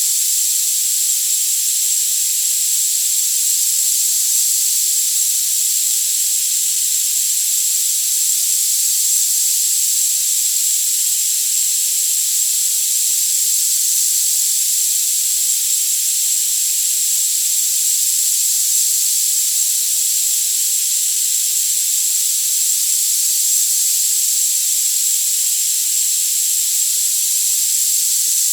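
Tinnitus-masking sound: a steady, unchanging synthetic hiss with the low end cut away, and a thin, very high steady tone laid over it.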